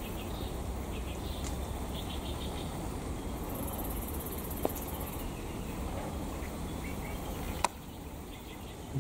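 Faint insect chirping over a steady rustle and rumble, with a small click about halfway and a sharper click near the end.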